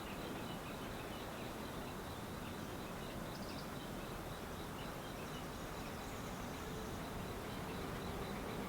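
Quiet outdoor ambience: a steady background noise with faint insect chirps scattered through it.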